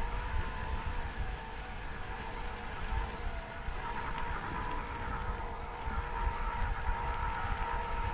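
Electric mountain bike climbing a dirt trail: the motor's steady whine over low rumble from wind on the microphone and tyres on the ground.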